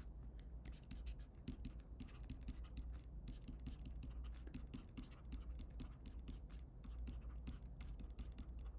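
Faint scratching and irregular tapping of a pen writing, over a steady low hum.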